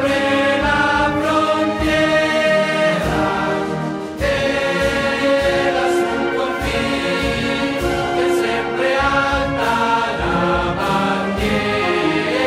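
A choir singing with musical accompaniment.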